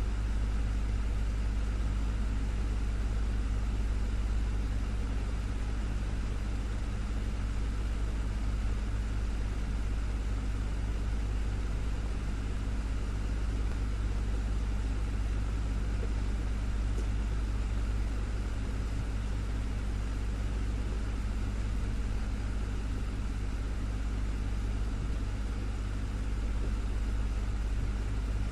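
Desktop electric fan running steadily: a constant low motor hum under an even whoosh of moving air.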